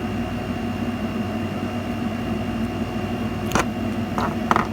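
Steady mechanical hum of a room appliance or fan with a faint high whine. About three and a half seconds in there is a sharp snap, followed by a few smaller clicks near the end, as the cutters snip through the servo lead's wire.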